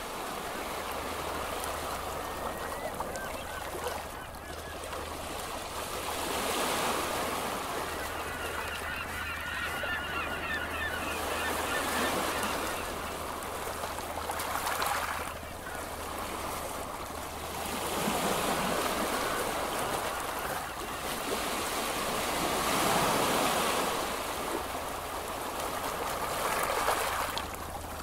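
Ocean surf washing onto a beach, swelling and falling back every five or six seconds, over a steady low hum.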